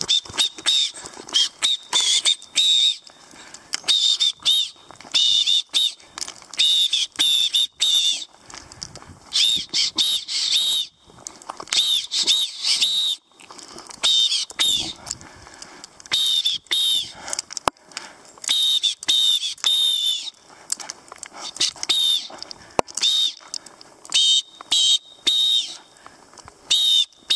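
A handheld safety whistle blown over and over in short, loud, warbling blasts, often two or three in quick succession, to make noise and warn off a bear.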